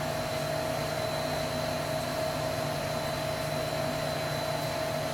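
Steady whirring noise of a running machine, with a constant pitched hum and a faint high whine, unchanging throughout.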